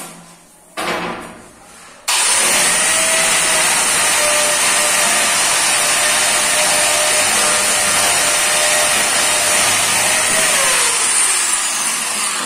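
A short knock about a second in. Then an electric angle grinder is switched on and runs steadily and loudly on granite, with a high whine. Near the end it is switched off, and its pitch falls as it winds down.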